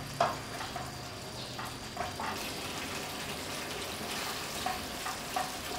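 Thick creamy curry sauce simmering in a frying pan, with scattered small pops of bubbles breaking through it. A wooden spoon stirs through the sauce at the start.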